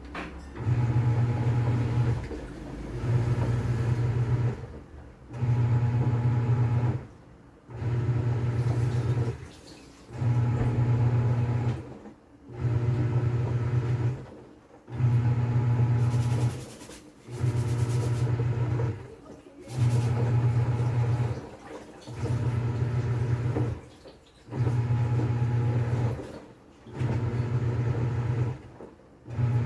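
TCL top-load washing machine agitating on its wash cycle. The pulsator motor hums in bursts of about two seconds with short pauses between them, reversing direction each time and churning the water and clothes.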